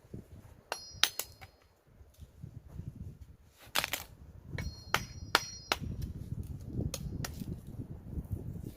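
Machete chopping wood: about a dozen irregular sharp blows, several with a brief high metallic ring from the blade.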